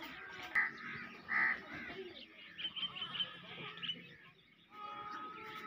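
Farmyard birds calling: two loud calls, one about half a second in and one about a second and a half in, then a run of quicker short calls, and a steady high tone in the last second.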